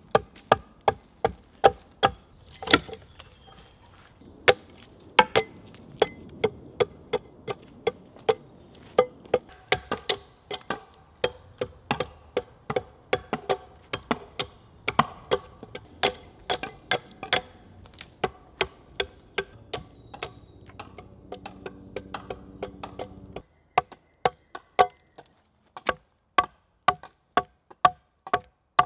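A small hatchet chopping into a round log, notching and hewing it with short, quick blows at about two to three a second.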